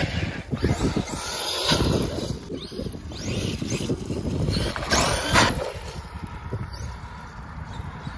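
Electric RC monster truck's motor whining as it is throttled on and off, the pitch sweeping up and down several times, strongest about two and five seconds in.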